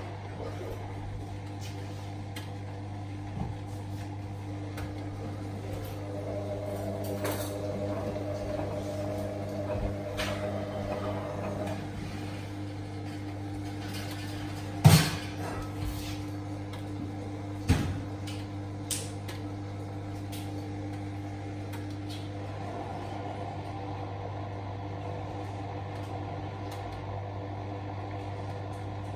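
Hotpoint WM63P washing machine's motor turning the drum during its first interim spin with a very unbalanced load of towels: a steady hum with a few sharp knocks, the loudest about 15 seconds in and another near 18 seconds.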